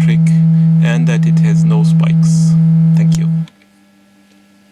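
DIY analog synthesizer VCO sounding a steady low triangle-wave tone: a well-adjusted, near-pure triangle with very few harmonics and a typical hollow sound. It cuts off suddenly about three and a half seconds in, leaving a faint hum.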